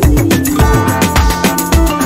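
Background music with a steady electronic beat and bass.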